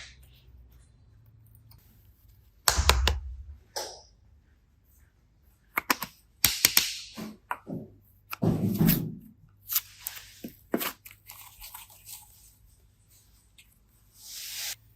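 Hands handling slime and small plastic pieces: scattered sharp clicks and knocks, a few short squishy rustling noises, and a brief hiss near the end.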